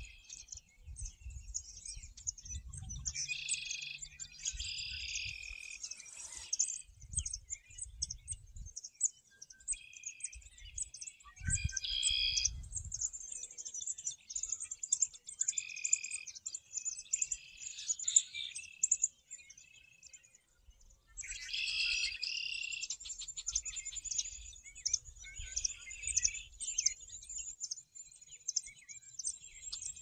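A chorus of several songbirds singing and chirping, with overlapping repeated phrases and rapid high chips. A low rumble comes and goes underneath.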